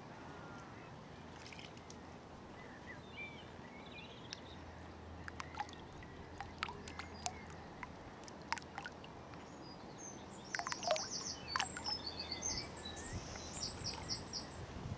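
Songbirds singing in short phrases, ending in a run of quick repeated high notes, over a steady low outdoor hum. Scattered sharp little clicks and smacks come from carp feeding at the water surface.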